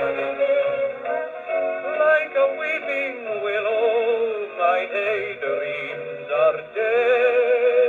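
Decca Telesmatic wind-up gramophone playing a 1932 Eclipse 8-inch record: an early-1930s popular song recording with a wavering vibrato melody, thin-sounding with little treble.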